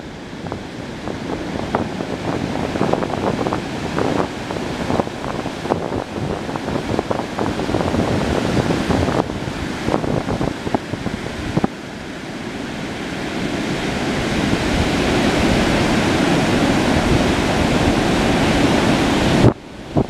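Ocean surf breaking and washing up a sandy beach, with wind buffeting the microphone in gusts. In the second half the wash swells steadily louder, then drops away suddenly near the end.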